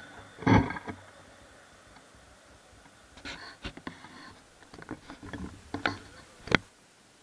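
Scattered light clicks and knocks from a hand-held camera being handled and moved: a short clatter about half a second in, then a run of irregular clicks, ending in a sharper knock near the end.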